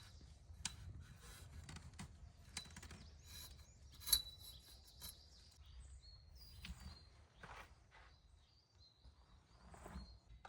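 Scattered light clicks, knocks and rustling from tent poles and ropes being handled while a tarp is set up, with one sharp click about four seconds in. Birds chirp faintly over a low outdoor rumble.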